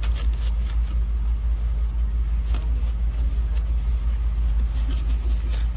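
A steady low machine hum, with a few faint clicks of a knife scoring a yellow melon's rind.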